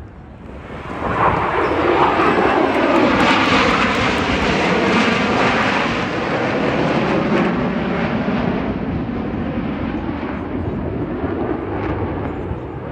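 A fixed-wing aircraft flying past: its engine roar swells sharply about a second in, holds loud for a few seconds with a sweeping, shifting tone, then slowly fades away.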